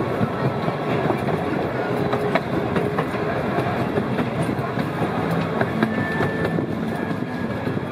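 Theme-park panorama train running, heard from its open-sided passenger car: a steady rumble of wheels on the track with scattered clicks.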